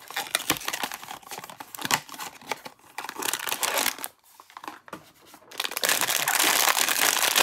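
Cardboard blind box flaps being opened and a foil pouch pulled out with scattered crackles, then, after a brief pause, the foil pouch crinkling loudly as it is squeezed and torn open.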